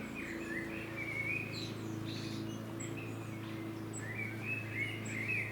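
Small birds chirping and warbling in two short bursts of song, one near the start and one from about four seconds in, over a steady low hum.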